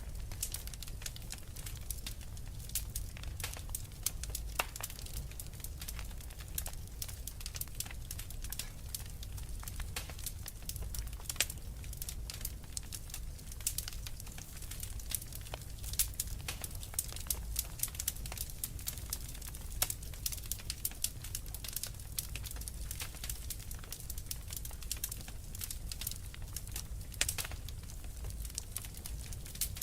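Wood fire crackling, with frequent irregular sharp pops and snaps over a low steady rumble.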